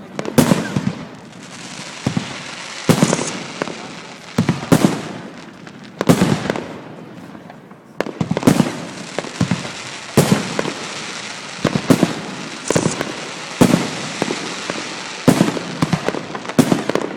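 Fireworks display going off: a sharp bang every one to two seconds, each trailing off in an echo, with a continuous noisy wash of smaller pops and crackle between them.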